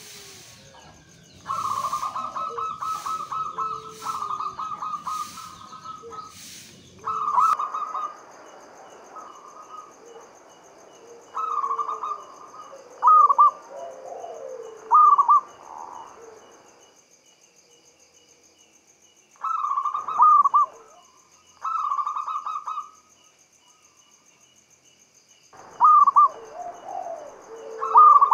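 Zebra dove (perkutut) cooing: repeated bouts of rapid trilled coos, some ending in short falling notes, with pauses of a few seconds between them. A faint steady high-pitched buzz runs behind.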